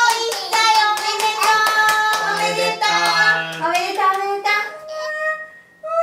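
Voices singing with quick, rhythmic hand clapping, the clapping thinning out about four seconds in.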